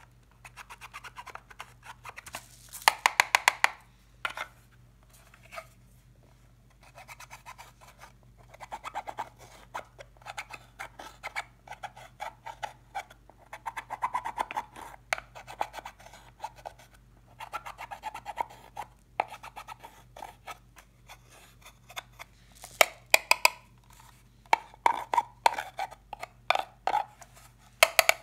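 A thin metal tool scraping and digging pressed eyeshadow out of a plastic palette's pans, in runs of rapid scratchy ticks as the powder crumbles and flakes fall into a glass bowl of slime. A few louder sharp clicks, about three seconds in, near the end and right at the close, come from the tool knocking the plastic palette.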